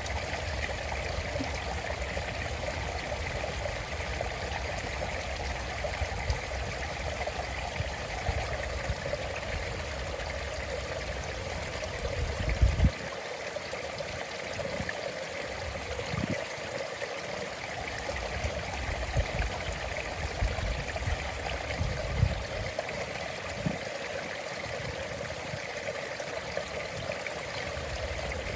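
Small stream running steadily over stones, a constant babbling rush of water. A few brief low thumps break through the flow, the loudest about halfway through.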